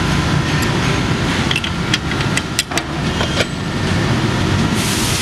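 Sharp metallic clicks of an adjustable wrench on the clamp-bolt nuts of a pipe shoe, several in the middle, over a loud steady rumble of shop noise. A hiss starts near the end.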